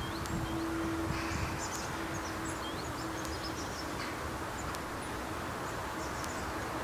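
Outdoor winter pasture ambience: a steady rushing background with a low hum that comes and goes, and faint, short high chirps of small birds scattered throughout.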